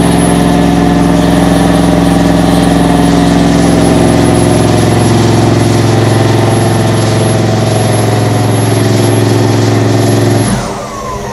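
Pickup truck engine held at steady high revs during a burnout, rear tyres spinning in smoke. Near the end the throttle is released and the revs fall away quickly.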